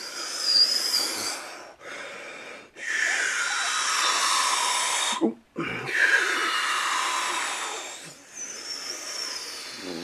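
A person making whooshing spaceship fly-by noises with the mouth: several long, breathy hisses a few seconds each, some sliding down in pitch, as a toy starship is swooped through the air.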